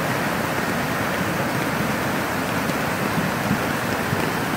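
Brown floodwater from an overflowing stream rushing and churning over its banks and across a road: a steady, even rush of moving water.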